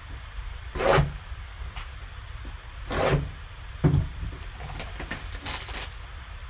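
Gloved hands handling a cardboard trading-card box: two brushing scrapes about one and three seconds in, a sharp tap just before four seconds, then faint light scratching and rustling as the box is worked open and lifted.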